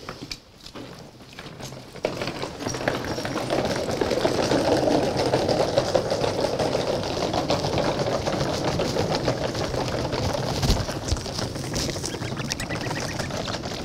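Several wheeled suitcases pulled along a wooden boardwalk, their wheels rattling steadily over the planks from about two seconds in.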